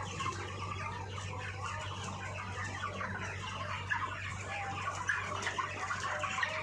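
A large flock of 30-day-old broiler chickens calling all at once, a dense continuous chatter of many overlapping short calls, over a steady low hum.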